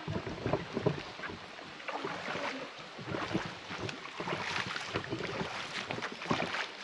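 Irregular splashing and sloshing of water, as of feet wading through a shallow stream, over a steady rush of water.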